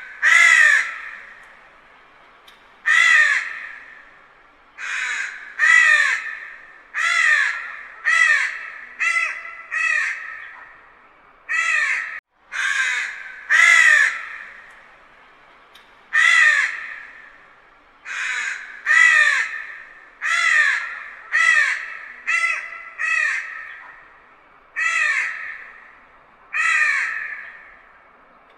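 Crow cawing from a distance: about twenty harsh caws spread unevenly, some coming in quick runs of two or three, each trailing off in an echo.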